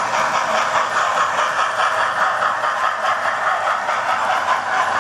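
Model train running on its track: a model A4 Mallard locomotive and its coaches rolling past, a steady whirring rattle of motor and wheels with fast small clicks from the wheels on the rail.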